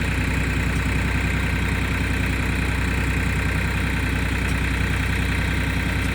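Diesel engine of a backhoe or tractor running steadily at idle, with an even low pulsing rumble.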